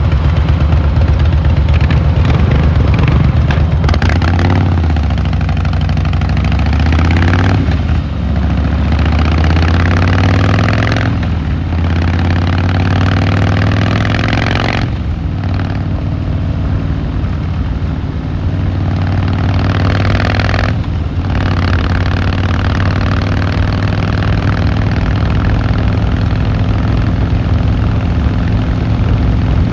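Harley-Davidson Fat Boy Lo V-twin engine and exhaust running under load. The engine pulls up through the revs several times, with short drops about 8, 11, 15 and 21 seconds in as gears are shifted, then holds a steady cruise.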